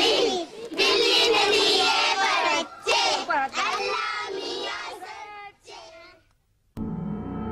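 A crowd of young children's voices calling out together, high and overlapping, fading away about six seconds in. Music begins near the end with a held chord.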